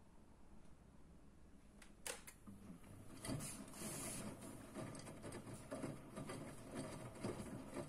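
Front-loading washing machine mid-wash: after a quiet pause and a click about two seconds in, the drum starts turning, with wet laundry tumbling and water sloshing against the door glass.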